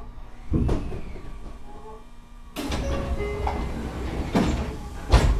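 Inside a Tokyu 9000 series electric train standing at a station: a door closing with a thump about half a second in. About halfway through there is a sudden rush of noise, and two more loud thumps come near the end, the last the loudest.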